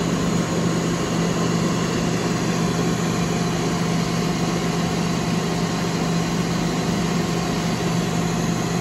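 Ninja Foodi 5-in-1 indoor grill running on its high grill setting with the lid shut: its fan gives a steady, even hum over a rushing of air.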